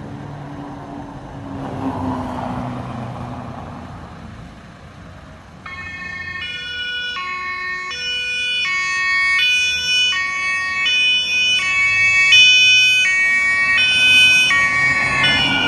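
Vehicle engine noise that swells and fades, then about six seconds in a fire brigade vehicle's two-tone siren (German Martinshorn) starts, alternating between a high and a low note about every 0.7 s and growing louder as the vehicle approaches.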